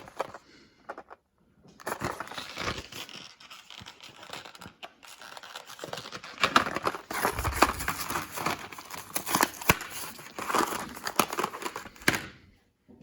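Retail packaging of a small hand-tool pick set being torn open and crinkled by hand: rustling, crackling noise with many sharp clicks, starting about two seconds in and cutting off abruptly near the end.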